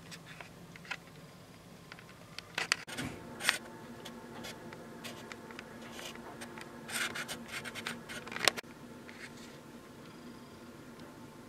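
Irregular scratching and rubbing with sharp clicks, loudest about three seconds in and again around seven to eight and a half seconds, over a faint steady hum: camera handling noise.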